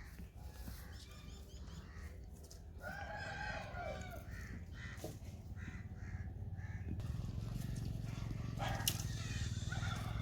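A rooster crows once, about three seconds in, with a few fainter bird chirps around it. A low steady hum comes up near the end.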